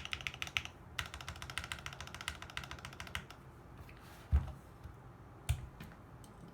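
Fuji 65 custom mechanical keyboard with a carbon fibre plate and lubed Seal linear switches, typed on fast in two bursts of rapid keystrokes with a short pause between. Then come two single, deeper, louder thumps about a second apart.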